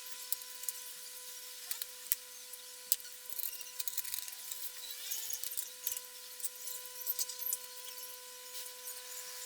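Light hand-tool work: scattered clicks and short scratchy scraping sounds, with a steady electrical hum underneath.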